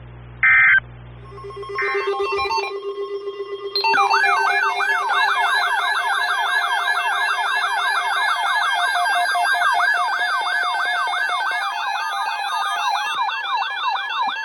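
Emergency Alert System end-of-message data burst, a short buzzy chirp, followed by a steady low tone. From about four seconds in, a loud electronic alert tone warbles up and down about three times a second, siren-like.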